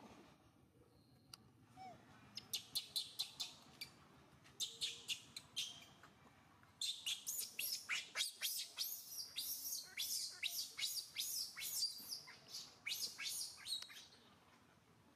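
Baby macaque crying: rapid high-pitched squeals, each falling in pitch, several a second. They come in short bursts at first, then almost without a break through the second half. It is an infant's distress cry while its mother pushes it away and won't let it nurse.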